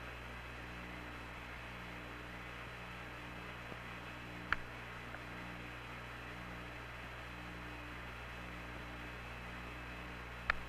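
Steady electrical hum and hiss of the air-to-ground radio audio line with no speech, a low tone pulsing on and off about once a second beneath it, and two short clicks, one a little before halfway and one near the end.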